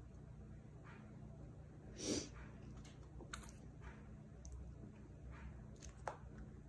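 Baby English angora rabbits moving about a pen: faint scattered taps and scuffles from their feet and the things they bump, with one short louder rustle about two seconds in.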